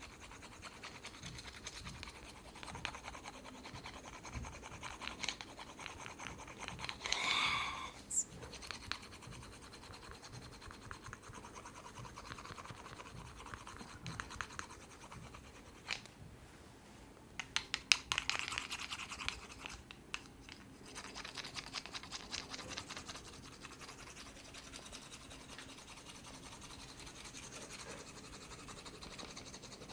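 Hands scratching and rubbing through hair and scalp in a close-miked head massage: a quiet, fine, crackling scratch, with a louder rasp about seven seconds in and a few sharp clicks around sixteen to eighteen seconds.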